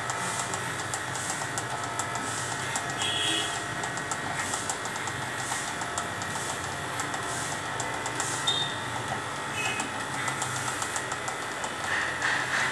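Corded electric hair clippers running with a steady buzz as they shave through a dog's thick coat.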